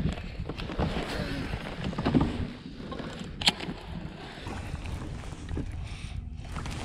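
Wind on the microphone and water lapping against a kayak's hull, with small handling knocks from the rod and reel and one sharp click about halfway through.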